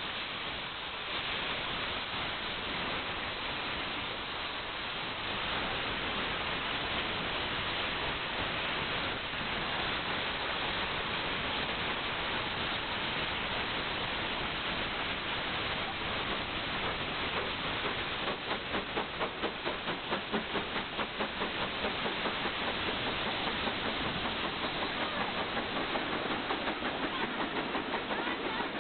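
GWR 4500 class 2-6-2 prairie tank locomotive No. 4566 working a train: a steady hiss of steam that grows gradually louder. In the second half its exhaust beats come through as an even chuffing, about three a second.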